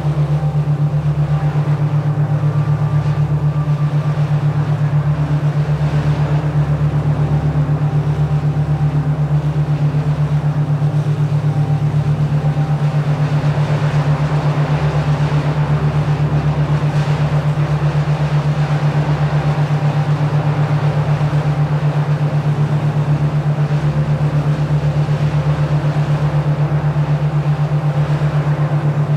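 A steady low electronic drone pulsing quickly and evenly, with held tones layered above it and a soft wash of noise: a synthesized binaural-beat style relaxation tone.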